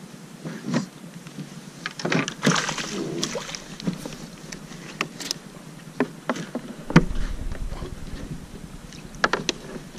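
Scattered clicks, knocks and rattles of a fish and fishing gear being handled on a plastic fishing kayak, with a loud knock on the hull about seven seconds in followed by a low rumble.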